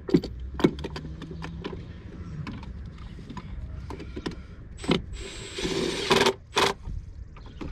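Clicks, knocks and clatter of hand work on the engine's ignition coils and spark plugs, with a short rasping burst about five and a half seconds in.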